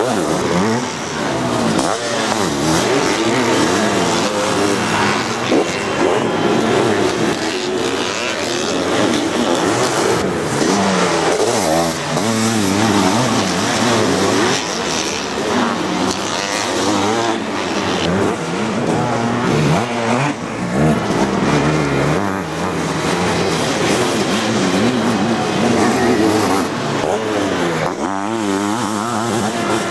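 Sidecar motocross outfits racing on a dirt track, their engines revving hard and easing off as they take corners and climb. The engine pitch keeps rising and falling, with more than one machine heard at once.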